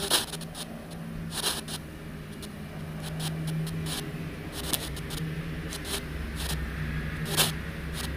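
ANC-Mini spirit-communication box giving short, irregular bursts of static and crackle over a steady low hum, as it scans for a reply.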